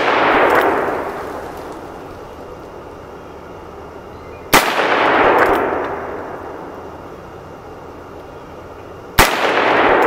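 Heritage Rough Rider single-action .22 revolver firing .22 Magnum (CCI Maxi-Mag) rounds: two sharp shots about four and a half seconds apart. Each is followed by a long rolling echo that dies away over about two seconds. The echo of a previous shot is still fading at the start.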